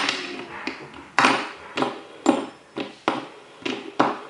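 Fidget spinner being handled, giving a series of sharp clacks that ring out briefly, roughly two a second, growing softer toward the end.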